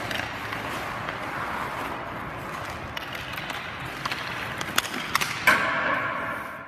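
Hockey skates scraping and carving on rink ice in a steady hiss, with a few sharp clicks of a stick on a puck. Near the end a buzzing tone joins before the sound fades out.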